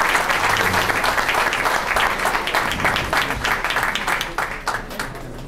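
Audience applauding, thinning out into scattered separate claps that die away near the end.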